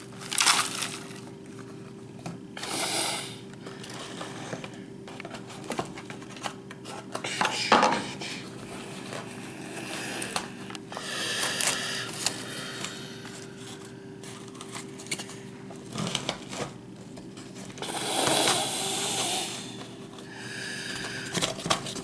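Cardboard box and paper packing being handled: irregular bursts of paper and cardboard rustling and scraping, over a steady low hum.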